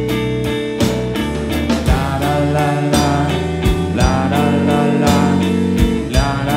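Live rock band playing: electric guitar, bass guitar and a drum kit keeping a steady beat with cymbal strikes about three a second. A man's voice sings long, drawn-out notes over it from about two seconds in.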